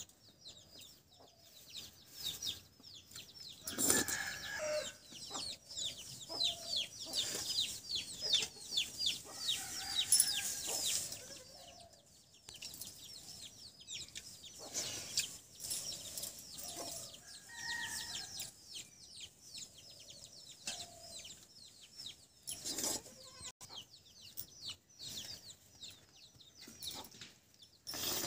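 Chickens clucking, with a dense run of quick high chirps over them that is heaviest in the first half, and a few sharp knocks.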